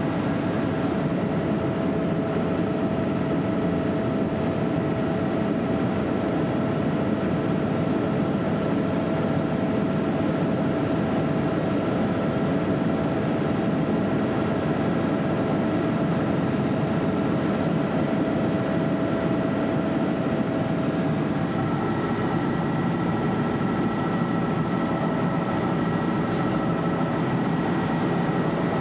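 Helicopter's engine and rotor running steadily in flight, heard from inside the cabin: a dense rumble with several steady whining tones on top, the whine changing slightly about two-thirds of the way through.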